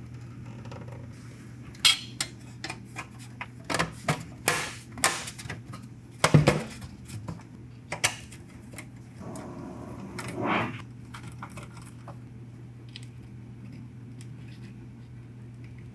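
Scattered clinks and knocks of small metal tools and parts being handled and set down on a workbench, busiest in the first half, with a short rustle about ten seconds in.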